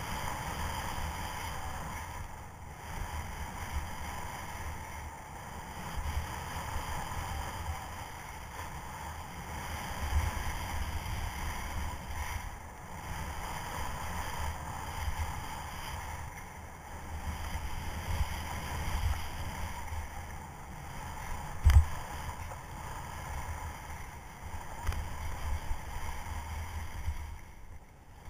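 Alpine skis hissing and scraping over firm, wind-textured snow through a series of turns, with wind buffeting the microphone in uneven gusts. A single sharp knock about three quarters of the way through.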